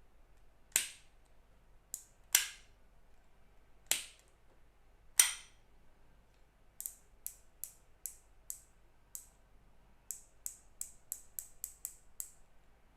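Daiwa Prorex XR TWS 300 baitcasting reel being worked by hand, its mechanism clicking. Four sharp, loud clicks come in the first five seconds, then a run of lighter, evenly spaced clicks that speed up near the end.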